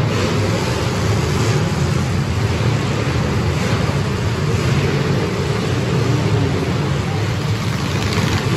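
Engines of many full-size demolition derby cars running and revving together in a loud, steady din as the cars push into one another.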